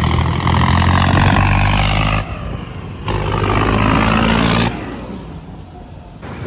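Swaraj 855 tractor's diesel engine running loudly and steadily, broken by abrupt cuts: a short drop a little after two seconds, then about five seconds in it falls away to a quieter rumble.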